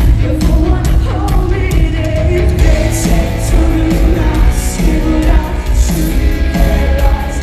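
Live rock band playing loud, with drums, bass and electric guitars under a singing voice. The bass and kick drum are heavy and boomy on the recording.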